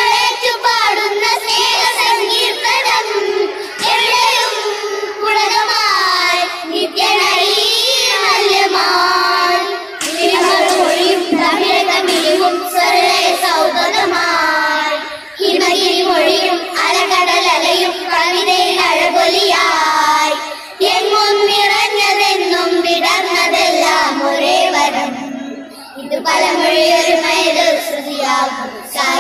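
A group of children singing a Malayalam patriotic song together, in sung phrases of a few seconds each with brief pauses between them.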